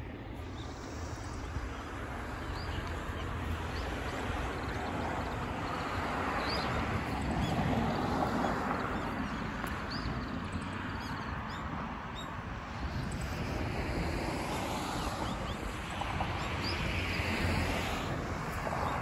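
Outdoor morning ambience: a steady wash of wind and distant road traffic, swelling and easing, with scattered short bird chirps.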